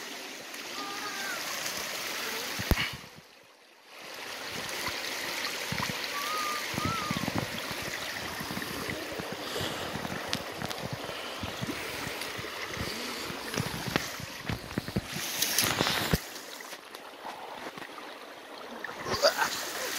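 Rain-swollen creek water rushing over flat bedrock in a steady hiss. It drops out briefly about three seconds in, and there is a short louder rush around fifteen seconds in.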